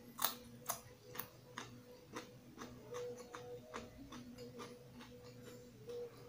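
Close-up crunching of raw carrot being chewed with the mouth closed, in a steady rhythm of about two crunches a second that grow softer as the carrot breaks down.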